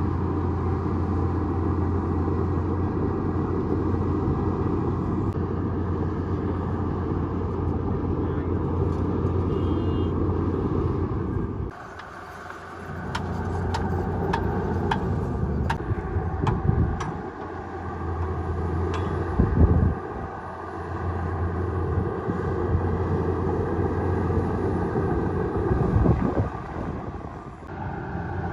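Bulldozer's diesel engine running steadily with a deep hum. About twelve seconds in it drops away briefly, then picks up again amid a run of sharp clanks. It surges a couple of times near the end.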